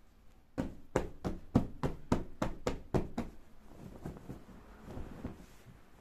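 A hand patting a newly sewn wool-filled pillow: about ten quick, even pats at roughly four a second, followed by softer fabric handling.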